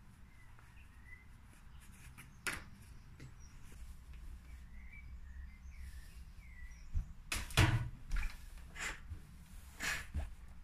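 Knocks and handling noises at an ironing board, the loudest cluster about two-thirds through as the Philips steam iron is taken up and set down on the curtain fabric, with further knocks near the end. Faint bird chirps in the background in the first half.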